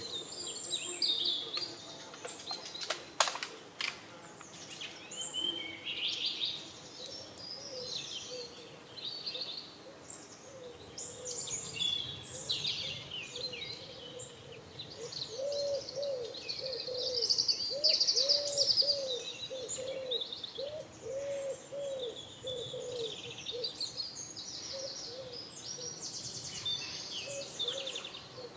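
Small birds chirping and singing over one another, with pigeons cooing in a run of short low notes through the middle. A sharp click sounds about three seconds in.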